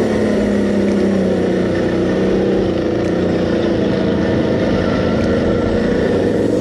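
Quad bike (ATV) engine running as it is ridden along at a steady pace; its note dips slightly about two seconds in, then holds steady.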